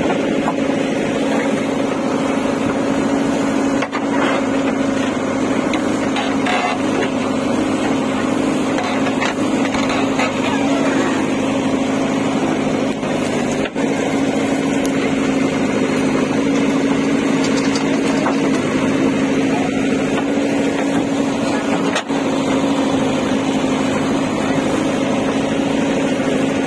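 JCB 3DX backhoe loader's diesel engine running steadily at working speed with a constant drone while the backhoe digs and dumps soil.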